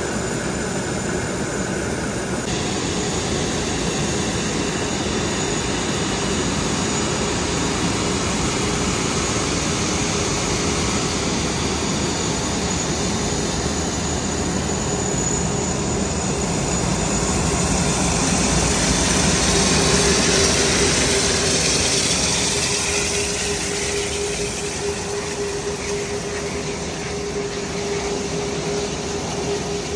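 Airbus A380's four Rolls-Royce Trent 900 turbofans running at taxi power: a steady jet rush with a high whine and a low steady hum. The whine grows louder from about two-thirds of the way through as the aircraft swings past, then eases.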